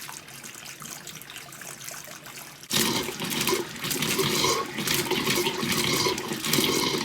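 Water and air spurting and sputtering from an opened tap as the cabin's plumbing is drained for winter. A faint trickle for the first few seconds, then about a third of the way in a sudden loud, uneven gush begins and keeps going.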